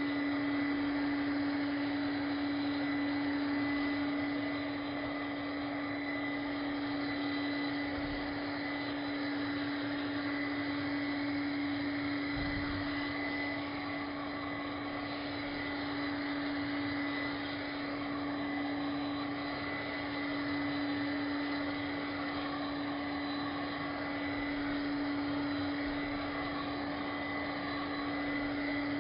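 Cordless handheld vacuum running at constant speed: a steady motor hum with rushing air, holding the same pitch throughout.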